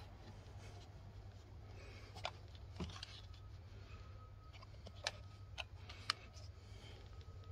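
A few sharp plastic clicks and taps as the plastic covers on a car battery's top and terminals are handled and pressed shut by hand, the sharpest about six seconds in, over a low steady rumble.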